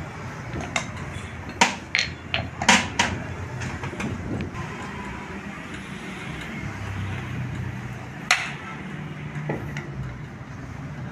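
Steel hand hammer striking the yoke of a Maruti Suzuki Eeco propeller shaft on an anvil block as a new universal-joint cross is knocked into place. A quick run of about six sharp metal clanks comes in the first three seconds and a single clank follows near the end, over a steady low hum.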